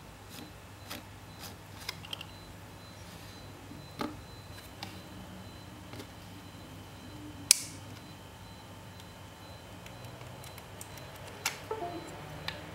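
Light clicks and taps of the plastic parts of an opened Logitech M170 wireless mouse being handled on a tabletop. There is one sharp click about seven and a half seconds in and a few more clicks near the end.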